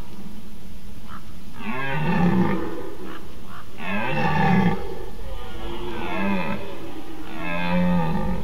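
Red deer stag roaring its rutting call: four deep, drawn-out roars, each under a second long, about two seconds apart.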